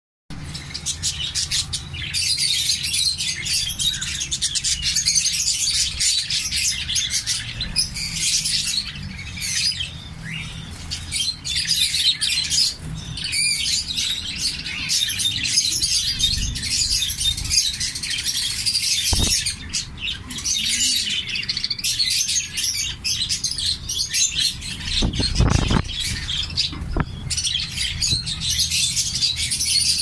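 A mixed aviary flock of zebra finches and budgerigars chirping and chattering without a break, many birds calling over one another. A few low knocks sound in the second half.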